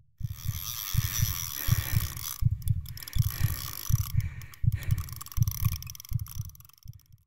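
Heartbeat sound effect: paired low thumps, about one and a half beats a second, over a thin hiss. It fades out near the end.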